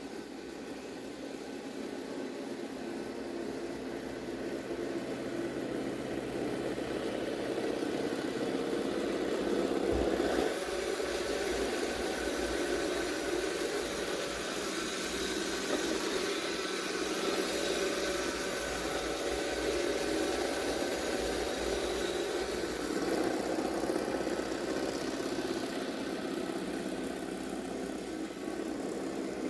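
Roomba Combo robot vacuum running, a steady motor and brush whir with a few steady high tones, louder from about ten seconds in.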